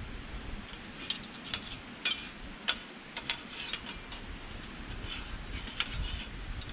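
Wood fire crackling in a Picogrill-style fire pit, with irregular sharp pops and snaps over a low rumble.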